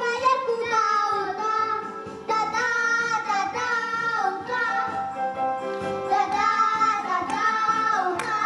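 A child singing a song into a microphone.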